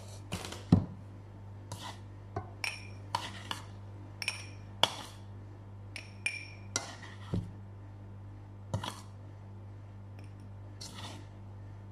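A metal spoon stirring in a drinking glass, clinking against the glass about fifteen times at an irregular pace, some strikes ringing briefly.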